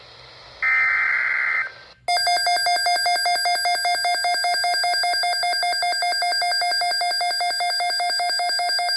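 The screech of a NOAA Weather Radio SAME header, a one-second burst of digital data, about a second in. From about two seconds in, an alert receiver's alarm beeps rapidly at one steady pitch, signalling an incoming weather alert.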